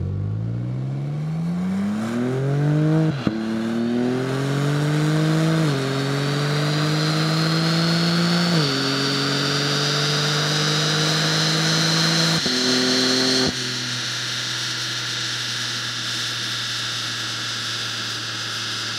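BMW M4 Competition's twin-turbo inline-six, breathing through a Remus sport exhaust, accelerates hard on a chassis dynamometer. The pitch climbs through the gears, with upshifts about three, six and nine seconds in and another near twelve. The throttle closes about thirteen and a half seconds in and the note settles to a steady low drone. The sound is dry, with no echo, in an anechoic chamber.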